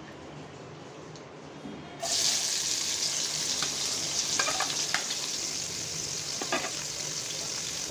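Sliced onions hit hot oil in an aluminium pot and begin sizzling loudly about two seconds in, after a quiet low hum. A metal spatula then clinks and scrapes against the pot as the onions are stirred.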